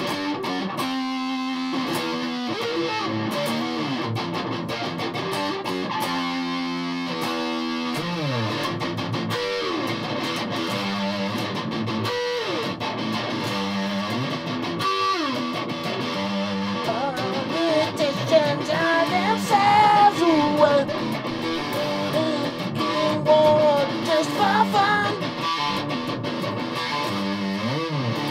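Electric guitar with P90 pickups played through a distortion pedal: a chugging riff with sliding chords, then, just past the halfway mark, a louder, higher lead line with bent notes before the riff returns.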